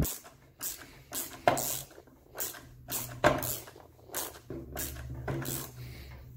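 Self-tapping screw being driven by hand screwdriver into the new plastic housing of a HiKOKI C3606DA cordless circular saw, giving a short creak or click with each twist, about two a second. The screw is cutting its own thread in the unthreaded new housing, so it takes a lot of force.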